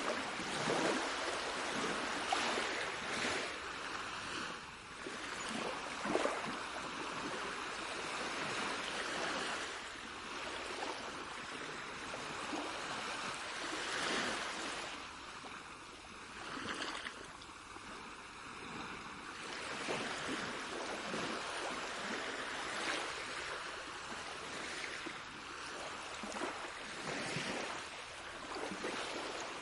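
Moving water washing and surging in uneven swells every few seconds, a steady hiss that rises and eases like waves breaking and running back.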